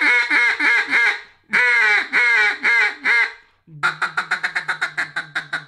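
DUX Next Gen duck call blown by mouth: two runs of quacks with a short pause between them, then about two-thirds of the way through a fast, even chatter of short notes, about seven a second.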